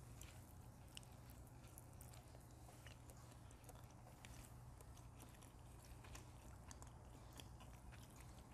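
Faint chewing and biting on a pressure-cooked chicken drumstick: scattered small mouth clicks over quiet room tone.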